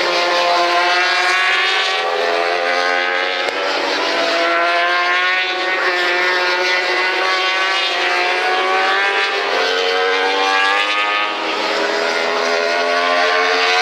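Several 1000 cc four-cylinder JSB1000 racing superbikes running at race speed through a corner, with more than one engine heard at once. Their engine notes climb in pitch as they accelerate out and overlap as the bikes follow one another past.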